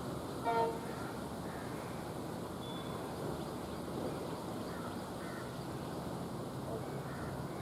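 A short toot from a WDG-4D diesel locomotive's horn about half a second in, after which a steady even noise runs on.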